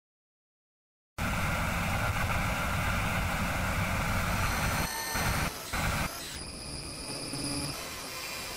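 Harsh static-like noise with a low rumble, cutting in suddenly about a second in, then breaking off and changing abruptly several times in the middle.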